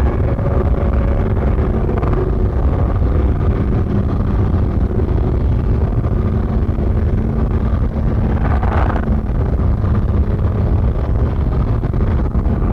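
Harsh noise music: a loud, dense wall of distorted rumble, heaviest in the low end, with a faint steady hum and a brief brighter hiss about nine seconds in.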